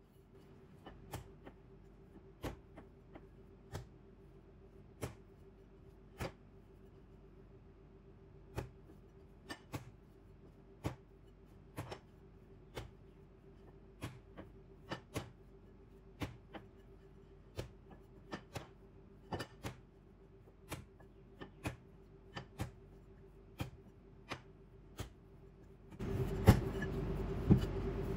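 Bread dough being kneaded by hand in a ceramic bowl: a run of irregular sharp knocks, about one or two a second, as the dough and bowl knock against the counter, over a steady low hum. The background gets noticeably louder about two seconds before the end.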